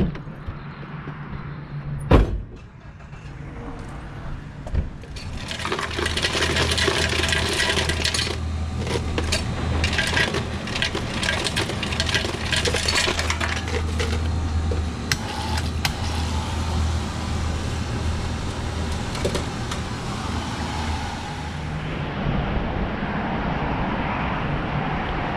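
A single slam about two seconds in, then the pickup truck drives along, its engine and road noise running steadily, with clinks and rattles over it, easing somewhat near the end.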